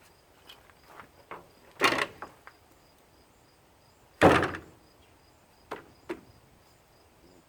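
Parts of an electric lawn mower being handled and shifted during teardown: two loud scraping clunks about two seconds apart, the second the loudest, among a few light clicks. Crickets chirp faintly in the background.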